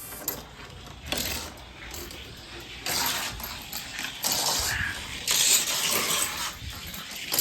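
Diecast toy car rolling down a long plastic gravity race track: a light, uneven metallic rattle of the small wheels and body over the track, swelling and fading as it runs.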